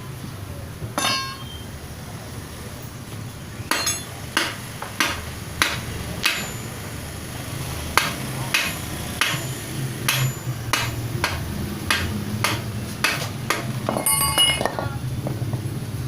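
Hammer striking metal transmission parts in a series of sharp, ringing blows, about one every half second, with a quick flurry of strikes near the end, over a low steady hum.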